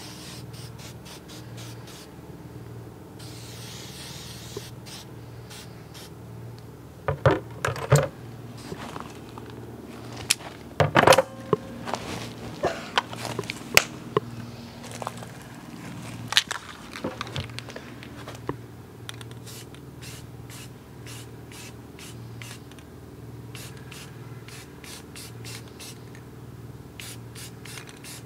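Metal tools, locking pliers and a ball peen hammer head, knocking and clattering as they are set down on an upturned plastic bucket: a few sharp knocks about a third of the way in, then smaller clatters and handling clicks.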